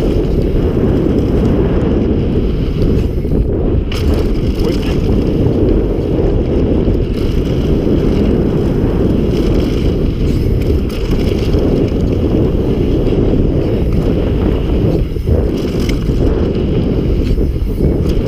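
Heavy wind buffeting on the microphone of a mountain bike's helmet or handlebar camera on a fast downhill run, over the rumble of the tyres rolling on a loose dirt trail. The noise is steady and loud throughout.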